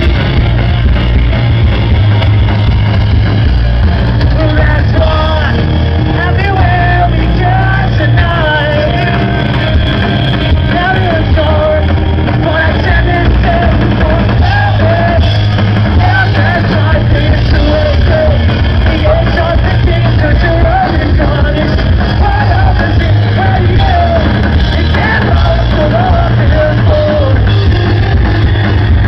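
A rock band playing live at full volume, with a sung lead vocal over the band for most of the passage.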